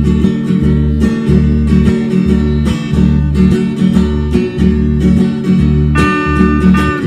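Music: a strummed acoustic guitar over a steady bass line that moves in regular repeating notes.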